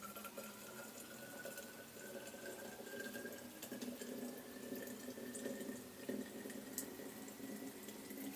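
Water pouring steadily into a container, with a faint tone that rises slowly in pitch as it fills.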